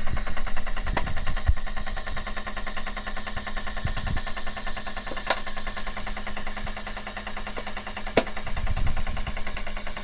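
Diesel heater fuel pump (a solenoid pulse pump) ticking rapidly and evenly at about 15 pulses a second over a steady hum, pumping sunflower oil out of a lubrication nozzle. A few sharper clicks stand out about a second in and again near the middle and near the end.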